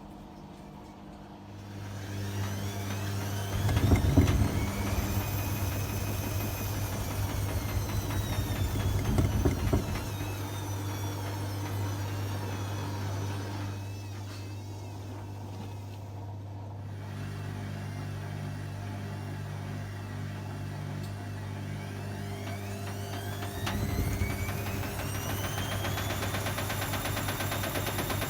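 Hotpoint WMA30 washing machine's motor whining up as it tries to take the drum into a spin, with heavy knocking from the off-balance drum twice in the first ten seconds, then winding back down. The load is unbalanced, so the spin is abandoned and retried, the whine rising again near the end.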